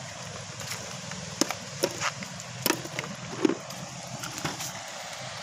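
Several sharp clacks and knocks of beach cobbles and shells being handled and stepped on, spread through the middle seconds, over a steady hiss.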